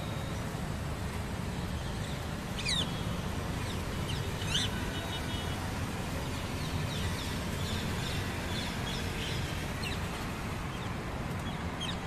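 Steady road-traffic rumble with a few sharp, short bird calls over it, the two loudest about three and four and a half seconds in, fainter ones later.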